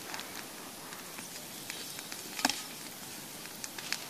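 Brush-pile bonfire crackling, with scattered sharp pops and one louder crack about halfway through.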